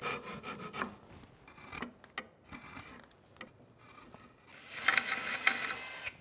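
Rubbing and scraping against wood in two stretches, a short one at the start and a louder one about five seconds in.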